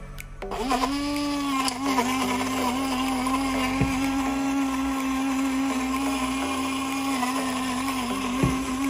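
Small portable personal blender motor spinning up about half a second in, then running at a steady pitch as it purees chunks of cantaloupe.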